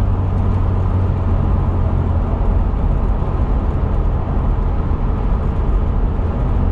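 Cabin noise inside a supercharged 2002 Toyota Tacoma pickup cruising steadily at 45 mph: a steady low drone of engine and road noise, which reads about 70 to 72 dB on a decibel meter. The cab has no sound deadening fitted yet.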